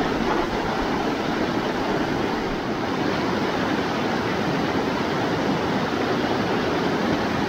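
Mountain stream rushing, a steady even noise of flowing water.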